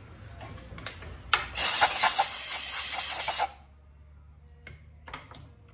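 Compressed-air blow gun blowing chips off a milling-machine vise: one loud hiss lasting about two seconds that cuts off suddenly, with a few short clicks before and after it.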